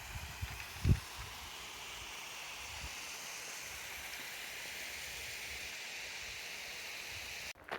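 Steady outdoor ambient hiss, with low wind buffeting on the microphone in the first second, one louder buffet about a second in.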